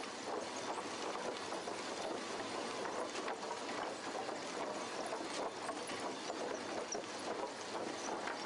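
Sawmill lumber conveyor carrying freshly sawn boards: a steady mechanical clatter with scattered light clicks and knocks.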